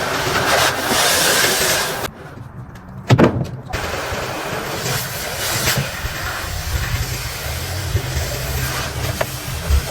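A motor vehicle running, with a steady hiss of noise over it and a low rumble that grows in the second half. There is a loud knock about three seconds in.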